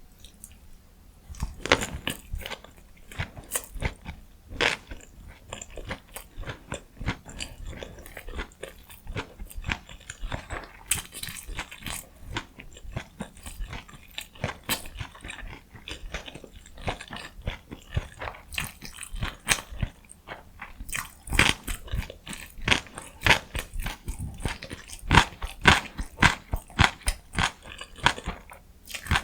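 Close-miked eating ASMR: a person biting and chewing food, with a dense run of crisp, wet mouth clicks and crunches that starts about a second and a half in.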